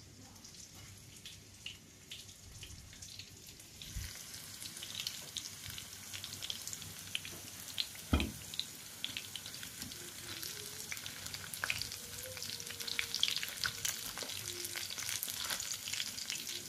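Breadcrumb-coated Korean corn dogs on wooden skewers sizzling and crackling in hot oil in a frying pan. The sizzling becomes steady and louder about four seconds in, and there is a single knock about eight seconds in.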